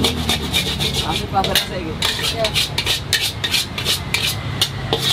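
Metal spatula clinking and scraping against a wok in quick rhythmic strokes, about four or five a second, as food is stir-fried.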